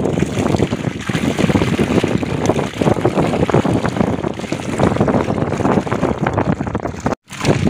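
Water splashing and sloshing in a mesh keep net as it is dipped and moved in a pond, with wind buffeting the microphone. The sound cuts out completely for a moment near the end.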